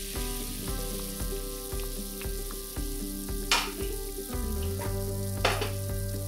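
Pot of soup broth boiling hard with the lid off: a steady bubbling hiss, with two louder popping splashes about halfway through and near the end.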